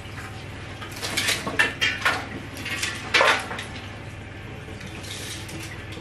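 Metal baking trays clattering and scraping as they are lifted and set down, a quick run of clanks with the loudest just past three seconds in.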